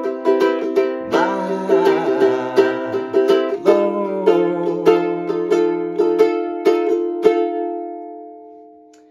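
Ukulele strummed in a steady rhythm of chords, playing the end of the song in C major. A last strum comes about seven seconds in, and the chord rings out, fading away over the last couple of seconds.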